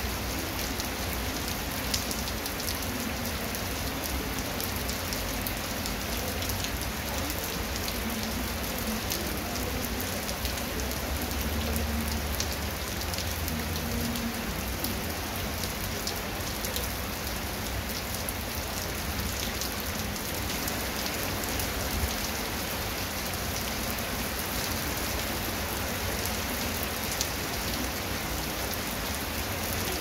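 Heavy rain falling steadily on a wet concrete path and grass, a constant hiss dotted with many fine drop patters.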